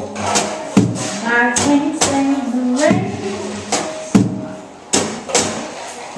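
Small live band playing a soul number: sharp drum-kit hits keep the beat over a bass line, and a woman sings a phrase about a second in.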